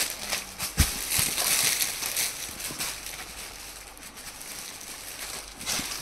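Clear plastic packaging bags crinkling and rustling as folded suit pieces are pulled out and handled, with a soft knock about a second in.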